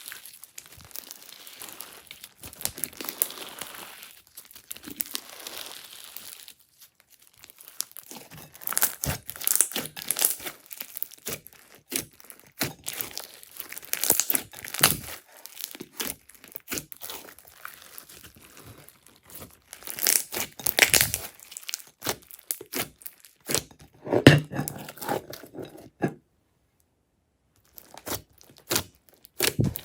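Slime being squished, stretched and pressed by hand, giving irregular sticky crackles and squelching pops. The crackling stops dead for a couple of seconds near the end, then starts again.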